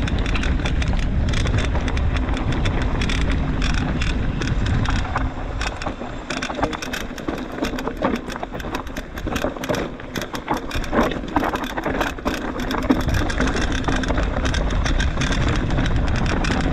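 Mountain bike being ridden over a dirt trail: the tyres on the ground and the bike rattling and clicking over bumps, with a steady low wind rumble on the camera microphone.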